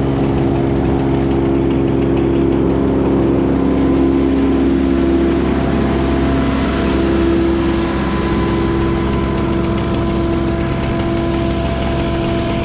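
A large engine running steadily at constant speed, a loud, even hum that holds throughout.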